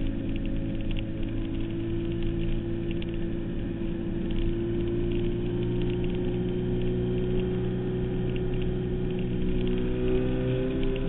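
Suzuki Hayabusa 1300's inline-four engine running hard at road speed, its pitch climbing slowly as the revs rise, with wind noise over the onboard microphone.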